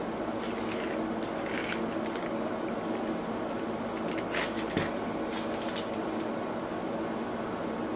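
Small eating and drinking noises over a steady room hum: soft clicks and crackles, then a sip through a straw from a paper fast-food cup in the middle, with one sharper knock just before five seconds.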